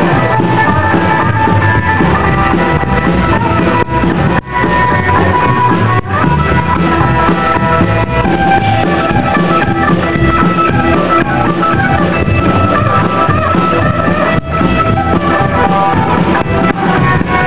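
Rock band playing an instrumental break, with guitar over drums and no singing.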